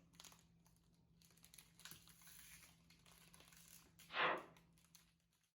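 Faint crinkling and small clicks of hands at work in a kitchen, with one louder brief scrape or knock about four seconds in; the sound cuts off abruptly just before the end.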